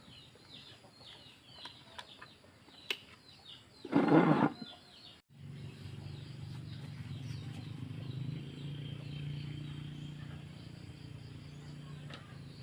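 Small birds chirping in quick repeated notes, with a loud brief clatter about four seconds in. After an abrupt break around five seconds, a steady low motor hum takes over.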